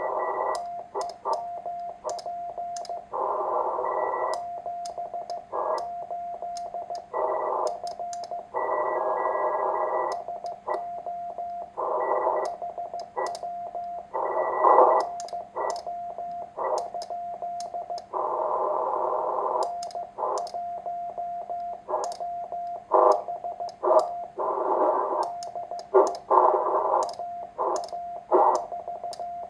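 Morse code from a homebuilt 1Watter QRP transceiver: a single-pitch CW tone keyed in dots and dashes, alternating with surges of band static. Sharp pops and clicks run through it.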